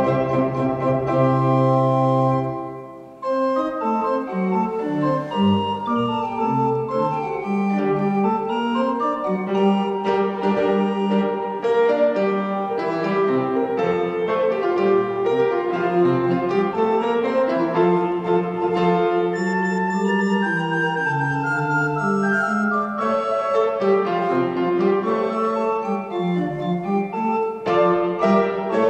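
A positive organ and an upright piano playing a classical-era piece together. A held chord fades out about three seconds in, and the playing then resumes with a new, moving passage.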